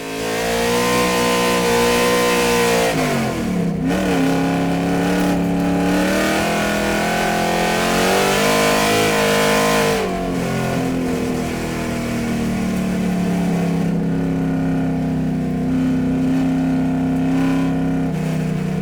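Car engine running and revving: a high, wavering note that dips about three seconds in and climbs again, then drops to a steadier lower note about ten seconds in.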